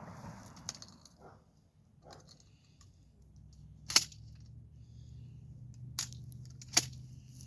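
A few sharp metallic clicks and clinks, the loudest about four seconds in, from handling a shotgun and its shells between shots. A faint low steady hum runs underneath from about three seconds in.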